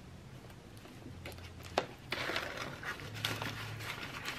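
Cash envelopes being handled and swapped: a sharp click, then a couple of seconds of paper and plastic rustling with small ticks.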